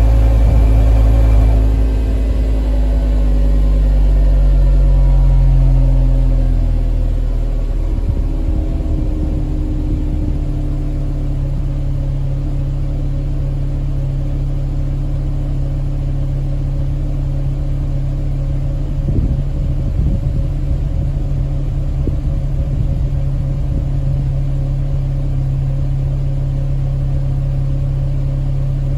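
Volkswagen Jetta MK5 2.5 inline-five on its stock two-muffler exhaust, running just after a cold start. Engine speed falls over the first seven seconds or so as the cold-start fast idle (about 1,200 rpm) ends. It then settles into a steady cold idle of about 800 rpm.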